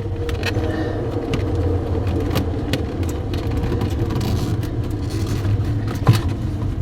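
A steady low engine-like rumble with scattered light clicks.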